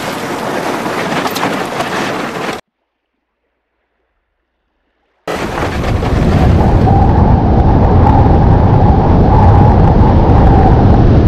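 Aluminum boat hull pushing through broken ice and water: a steady rush of water with scattered knocks, cut off abruptly about two and a half seconds in. After about three seconds of silence, a louder, steady rumbling rush starts and carries on.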